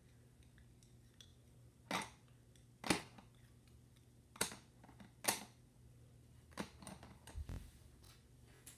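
Colored pencils clicking and knocking as they are handled: about six separate sharp clicks spaced roughly a second apart, with a low thump about three-quarters of the way through.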